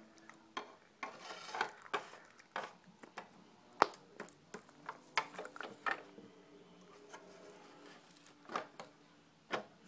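Plastic Littlest Pet Shop toy figures being handled on a tabletop among shredded paper grass: a run of irregular clicks, taps and rustles, the sharpest a little under four seconds in.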